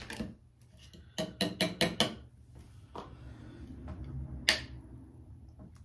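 Hard objects handled on a tabletop: a quick run of five knocks and clinks about a second in, then a single sharp knock near the end, with faint rustling between.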